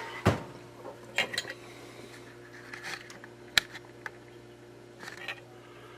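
A knock just after the start, then scattered light clicks and taps of small tools and wires being handled on a workbench, over a faint steady hum.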